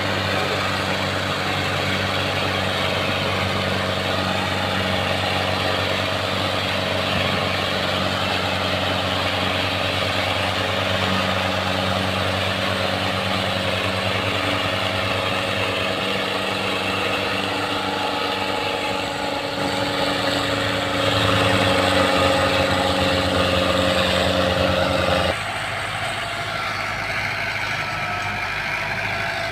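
Tractor engine running steadily under load, with a steady, even engine tone. It gets louder about 21 seconds in, then drops suddenly about 25 seconds in.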